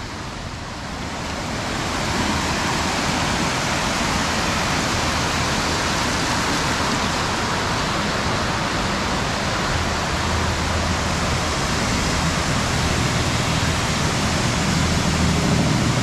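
Waterfall on the Gooseberry River, a steady rush of heavy water swollen by recent rain. It grows louder over the first two seconds and then holds level.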